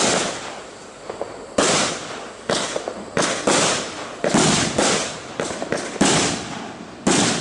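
A consumer fireworks cake (16-shot compact) firing: about a dozen sharp bangs of bursting shells in quick, irregular succession, each trailing off with a crackle.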